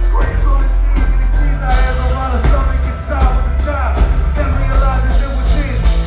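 Loud music with heavy bass and a bending vocal line over it.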